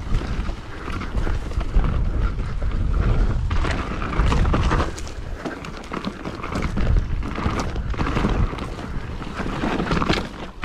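Mountain bike riding fast over rough ground: heavy wind rumble on the microphone, with tyre noise and frequent knocks and rattles from the bike.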